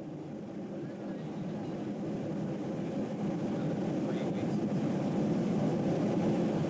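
Steady low engine drone, gradually fading up.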